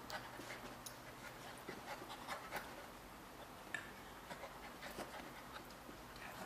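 Puppy panting softly while play-fighting with a cat, with scattered light scuffles and ticks.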